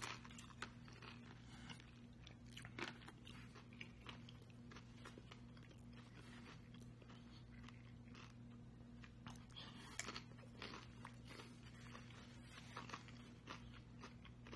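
Faint, close crunching and chewing as a crisp fried corn tostada topped with fish ceviche is bitten and eaten: many short, irregular crackles. A steady low electrical hum runs underneath.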